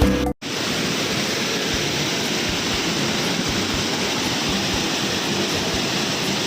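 Steady rush of a waterfall, heard just after a short snatch of music cuts off.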